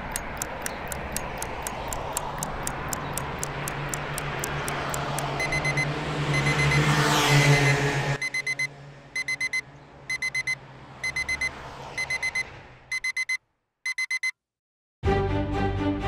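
Clock ticking over a low drone and a rising whoosh that swell to a peak and cut off. A digital alarm clock then beeps in quick sets of four, and after a second of silence music begins near the end.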